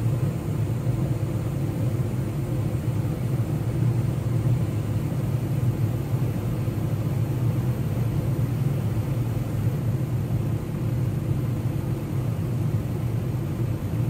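A gas furnace running with its burners lit and inducer fan on: a steady low rumble. The gas valve's regulator is being turned down, lowering manifold pressure from about 3.8 toward 3.2 inches of water column, which the technician says makes the burners quieter.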